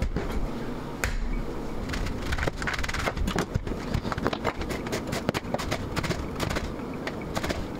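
Leaves being torn off a head of green cabbage, then a knife cutting them on a plastic cutting board: a quick run of crisp cracks and knocks.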